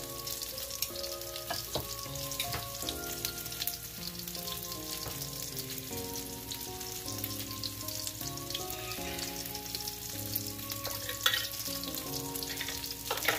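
Cauliflower fritters frying in hot oil in a skillet, a steady crackling sizzle, with soft background music of changing notes under it.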